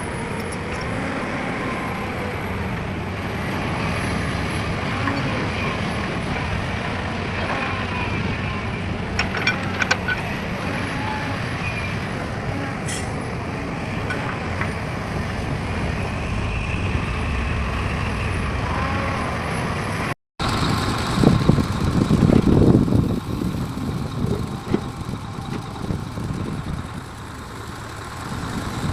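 Heavy diesel vehicles running, with steady road-traffic noise. About two-thirds of the way through, the sound cuts abruptly to a louder, rougher engine rumble that swells and fades.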